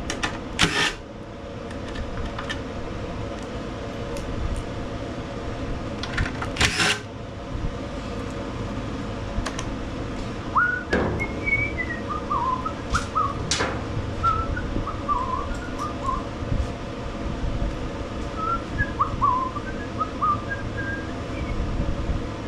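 A few sharp knocks and clunks, then from about halfway a string of short, jumpy whistled notes over a steady low hum.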